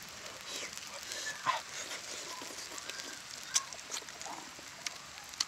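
A person eating with his fingers: close chewing and lip-smacking, a string of short, irregular wet smacks and clicks, with one sharper click about three and a half seconds in.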